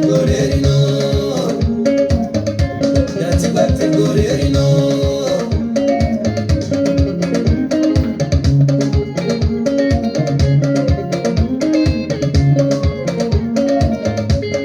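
Band music with plucked guitar lines over bass and a steady, even beat.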